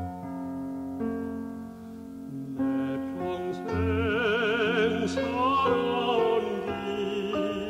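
Background music: slow piano chords, joined about two and a half seconds in by a singing voice with a wide, strong vibrato in an operatic style.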